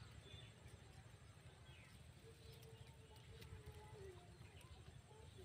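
Near silence: faint outdoor ambience with a low rumble and faint, distant bird calls.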